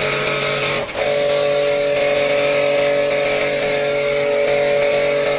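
Electric pressure washer running with a foam cannon, its motor and pump giving a steady whine under the hiss of foam spraying onto the car body. The sound dips for a moment about a second in, as the trigger is briefly eased.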